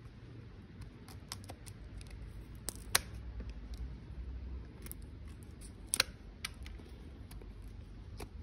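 Small hand snips cutting through an overgrown horse chestnut, the horny growth on a horse's leg. About eight or nine sharp, irregular snips, the loudest about three seconds in and again about six seconds in.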